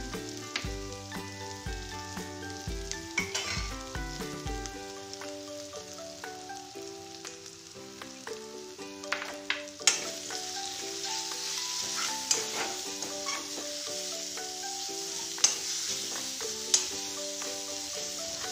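An onion and spice mixture frying and sizzling in an aluminium kadai, with the sizzle growing stronger about halfway through. A metal spatula scrapes through it and knocks sharply against the pan a few times. Soft background music plays underneath.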